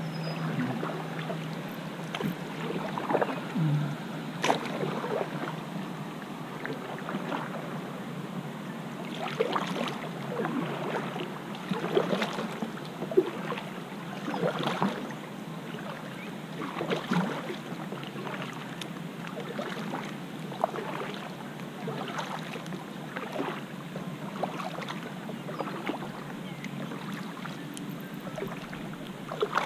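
Double-bladed kayak paddle dipping and pulling through calm lake water, with splashes and drips off the blades, a stroke about every second or two.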